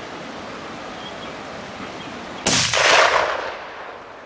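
A single hunting rifle shot fired at a yearling deer, about two and a half seconds in, its report rolling away over a second or so. Before it there is only a steady outdoor hiss.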